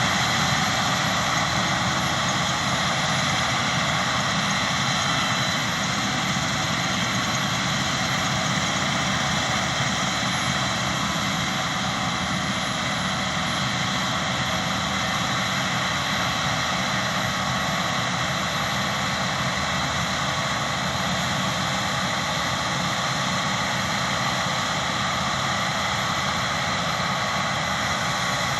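Claas Lexion combine harvester running steadily while harvesting, a constant mechanical drone with a spread of steady whines.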